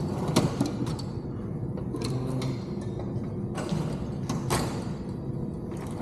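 A few short knocks and clicks from parts being handled, over a steady low background hum.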